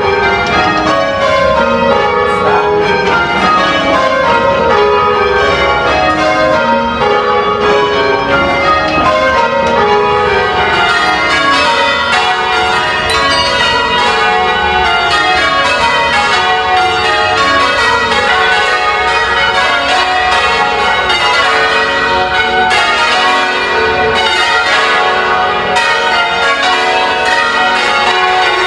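Church tower bells rung full-circle by a band of ringers pulling ropes, in change ringing. The bells strike one after another in falling runs down the scale, repeated without a break.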